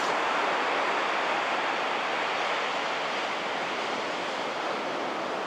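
Small ocean waves breaking in a shore break, a steady wash of surf that eases slightly near the end.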